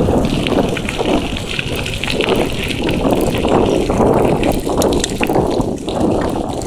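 Wind buffeting the microphone while riding a bicycle along a sandy forest track, a loud gusty rush with the tyres rumbling over the ground.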